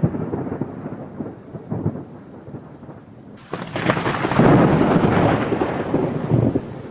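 Thunder: a low, crackling rumble, then about three and a half seconds in a sudden loud thunderclap that rolls on for about three seconds before dying away.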